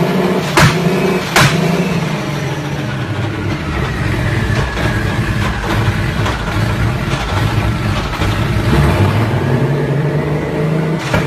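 The twin-engine, twin-turbo VR12 of a VW Golf Mk3 bimoto running with the car standing, heard from inside the cabin. There are two sharp cracks about half a second and a second and a half in, and a faint whine that drops and then climbs again in pitch midway.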